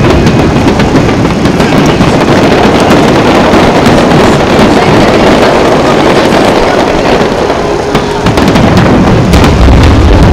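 Fireworks display at full barrage: many aerial shells launching and bursting in quick succession, their booms overlapping into one loud, continuous din, with sharper single bangs standing out about four seconds in and near the end.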